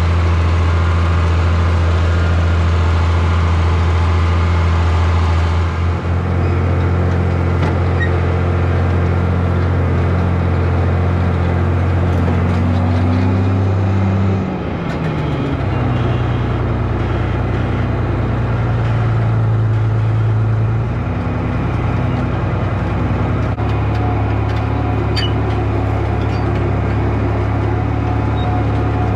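Farm tractor engine running steadily while driving. About halfway its note dips briefly and settles lower.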